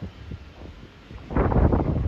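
Wind buffeting the phone's microphone in uneven gusts, with a low rumble. It is lighter at first, and a strong gust hits about one and a half seconds in.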